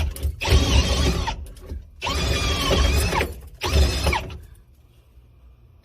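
A small handheld power tool run in three short bursts, its motor pitch dipping as it bites under load, then stopping about four and a half seconds in.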